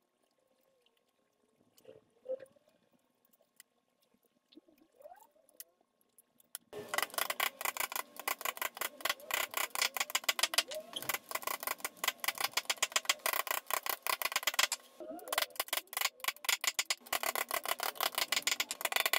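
Small wooden-handled hammer tapping rapidly on a wooden block laid over a thin wooden lattice, seating the notched strips into each other at their crossing joints. The first few seconds hold only faint clicks of strips being handled. The tapping starts about seven seconds in, stops for a moment around fifteen seconds, then goes on.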